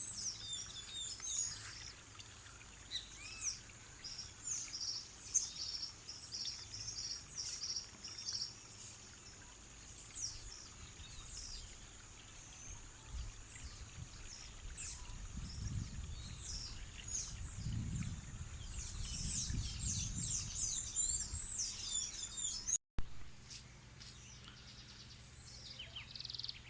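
Several birds chirping and calling in many quick short high notes, over a faint steady high tone. A low rumble swells in about two-thirds of the way through. Near the end there is a brief dropout to silence.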